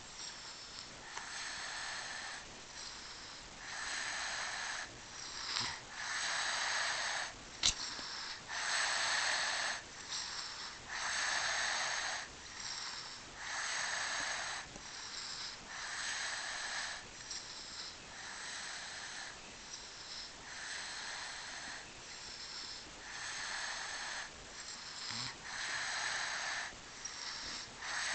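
A baby with a blocked nose snoring in sleep: regular, noisy, wheezy breaths about every two seconds, each with a thin whistle. There is a single sharp click about eight seconds in.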